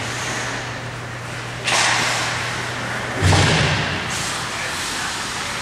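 Ice hockey play at rinkside: a sudden noisy burst, then a heavy thud against the boards and glass a second and a half later.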